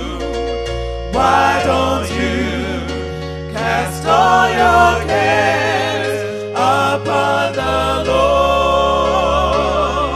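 Slow gospel worship song: voices holding long notes with vibrato over a sustained accompaniment.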